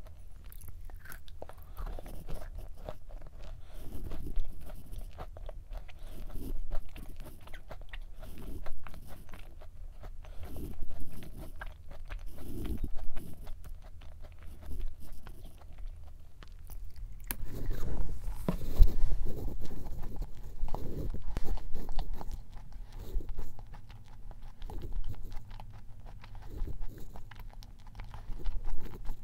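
Chewing and biting a thick matcha nut cookie close to the microphone, with crunchy chews coming about every second or two. The chewing grows louder for a few seconds a little past the middle.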